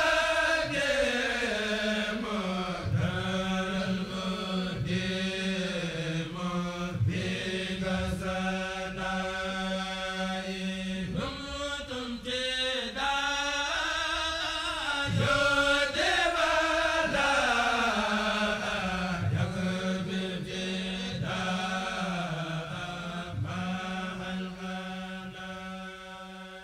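Background music: a chanted vocal melody over a steady held drone, fading out near the end.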